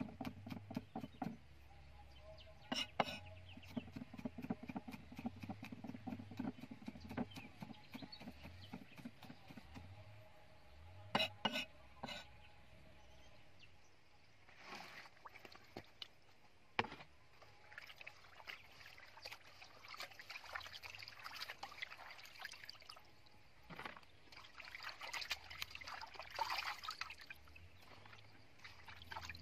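Cleaver rapidly chopping garlic on a wooden chopping block, fast repeated knocks with a few harder strikes. Then water sloshing and splashing in a metal wok as hands move fish in it, in uneven bursts.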